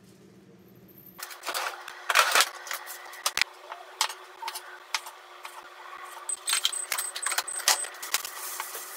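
Kitchen knife slicing cherry tomatoes on a wooden cutting board: from about a second in, a run of sharp knocks of the blade against the board, with rustling of cloth near the end.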